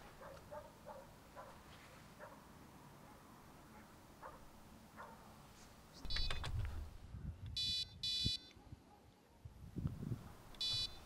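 Electronic carp bite alarms on a rod pod beeping in four short bursts as a rod is set into the rests and the line tightened, with low knocks from the rod being handled on the pod.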